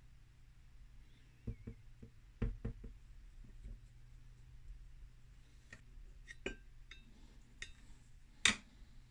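Light knocks and clinks of small metal compressor parts being handled and set down on a hard workbench, a few in quick succession early on, light ticks later and one sharper click near the end.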